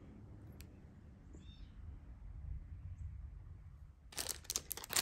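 Quiet handling of jewelry with a single light click, then from about four seconds in a small plastic bag crinkling as it is handled.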